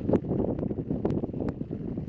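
Wind buffeting a mountain bike's camera microphone over the crunch of tyres rolling on a gravel fire road, with a few sharp clicks as the bike rattles over the stones.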